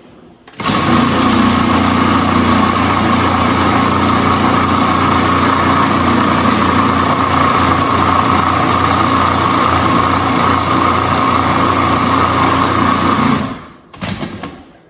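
Countertop food processor running steadily for about thirteen seconds, blending raw coconut cookie dough; it starts about half a second in and stops shortly before the end.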